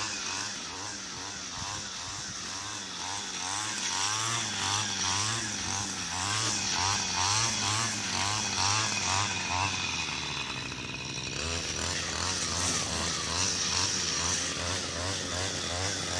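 Gas-powered string trimmer (weed eater) running while cutting grass, its engine pitch swelling and dipping over and over.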